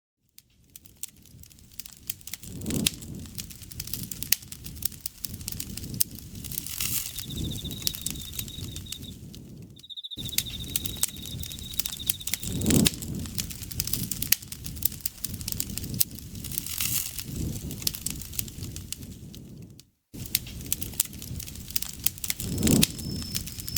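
Wood fire crackling and popping, with frequent sharp snaps over a soft low rustle. An insect trills steadily on one high note through the middle, and another higher one starts near the end; the sound drops out for an instant twice.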